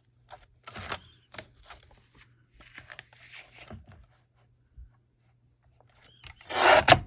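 Sheets of paper and card being handled and shifted on a work surface: a series of short rustles and scrapes, with a louder rustling scrape near the end.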